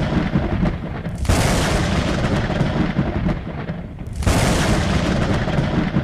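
Thunder sound effect: two loud claps of thunder, about a second in and again about four seconds in, each trailing off into a long rumble.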